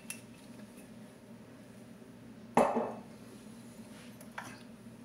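A glass oil bottle set down on a hard countertop, one sharp knock with a short ring about halfway through, with a lighter tick later, over a faint steady hum.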